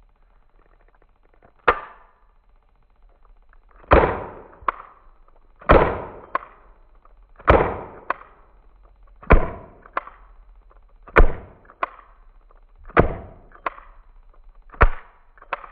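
Toy gun firing repeatedly: eight sharp shots, the later seven about two seconds apart, each followed about half a second later by a lighter click.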